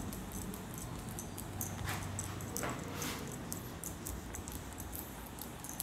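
Whiteboard duster wiping across a whiteboard: a few soft swishing strokes about two to three seconds in, over a faint low hum.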